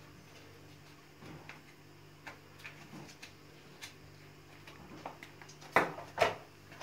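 A plastic bag being handled, with light ticks and rustles, then two loud crinkles in quick succession near the end, over a faint steady hum.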